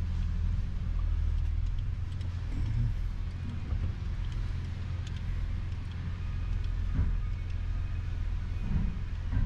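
Toyota Tundra pickup's engine running at low speed, a steady low rumble heard from inside the cab.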